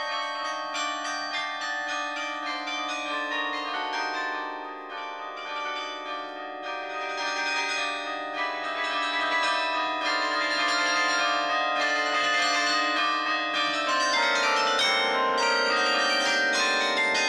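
Carillon bells played from the baton keyboard: a melody of overlapping bell strikes ringing on over a held lower bell tone. The bass moves down to a lower bell about two-thirds of the way through, and the playing grows fuller and louder from about halfway.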